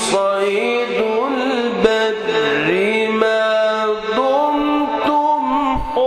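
A male reciter chanting the Qur'an in a melodic style: one voice holding long notes that waver and glide between pitches.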